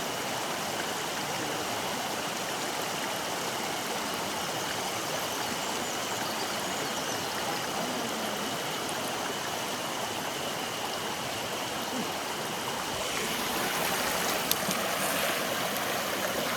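Mountain stream water running steadily over rocks, with a faint steady high tone over it. The water sound swells a little in the last few seconds, with a couple of short clicks.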